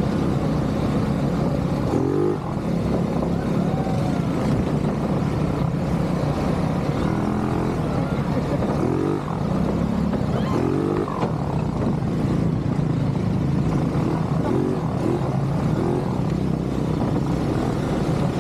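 ATV engine running steadily, with short rises in pitch every few seconds as the throttle is worked.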